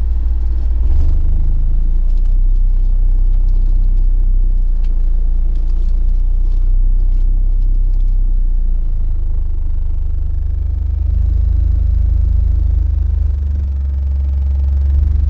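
Pair of American Bass XR 15-inch subwoofers in ported boxes playing a loud, deep bass test-sweep tone, the pitch stepping up a little about a second in and again after about nine seconds. Some light rattling goes with it in the first half.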